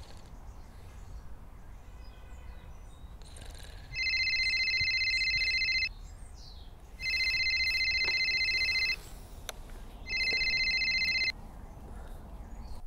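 Phone ringing: three electronic rings with a fast trill, each about two seconds long with about a second between them. The third is shorter, cut off as the call is picked up.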